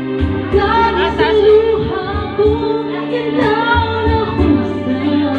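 A man singing through a corded microphone and loudspeaker over backing music, holding long notes that waver in pitch.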